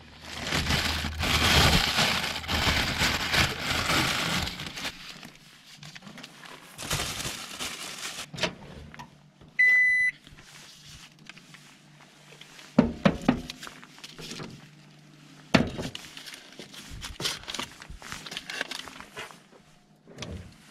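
A plastic carrier bag rustles loudly as it is handled for the first few seconds. About halfway through, a microwave oven's control panel gives one short electronic beep. Later come several sharp knocks as earthenware kamameshi pots are set down inside the oven.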